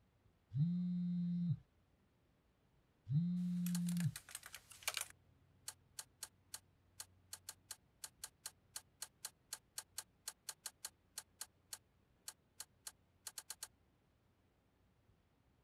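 A smartphone vibrating on a hard surface for an incoming call, two steady buzzes about a second long. Then laptop keyboard typing: a quick flurry of keystrokes, then single keys tapped at about four a second, stopping near the end.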